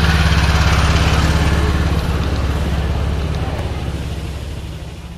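Small engine of a ride-on miniature diesel-outline locomotive running steadily as it pulls passenger cars past close by, dying away over the last few seconds.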